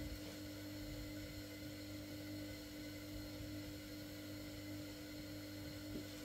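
Steady low hum with an even hiss, with a faint tap at the start and another near the end.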